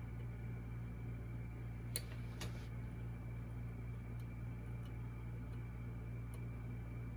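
Small clicks of lock picks working the pins of an 18-pin Goal V18 lock: a sharper click about two seconds in and another half a second later, then a few faint ticks, over a steady background hum.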